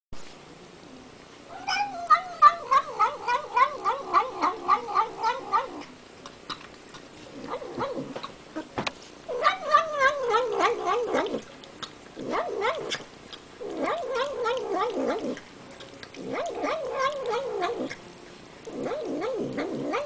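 Domestic cat making funny rhythmic 'nom nom' noises while eating, a wobbling vocal sound pulsing several times a second. It comes in repeated bouts of one to four seconds with short pauses between; the first bout, about two seconds in, is the longest.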